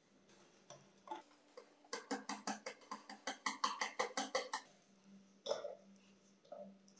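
Wire balloon whisk beating eggs with pumpkin and banana in a glass bowl, its wires clicking against the glass. After a few soft strokes, the clicks come fast and even, about six a second, from about two seconds in for some two and a half seconds. Then a few slower, single knocks follow.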